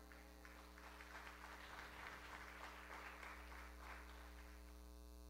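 Congregation applauding, faint, building to its peak about two to three seconds in and dying away before the end.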